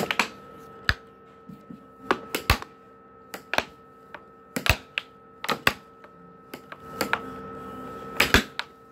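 Air hockey puck and plastic mallets clacking in an irregular rally, with some hits in quick clusters of two or three, over a steady hum.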